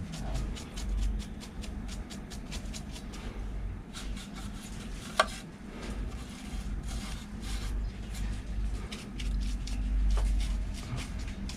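Paintbrush bristles sweeping dust off the circuit breakers and terminals of a household distribution board, in quick scratchy strokes, with one sharp click about five seconds in, over a low steady hum.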